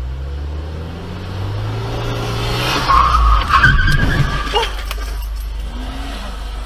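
A car's engine speeds up as it pulls away, then tyres screech under hard braking for about two seconds, loudest around three to four seconds in, as another car cuts across in front.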